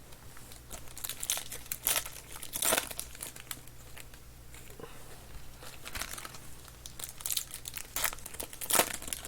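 Foil trading-card pack wrappers crinkling as packs are handled and torn open, in irregular spells of crackling with the loudest just before the end, over a low steady hum.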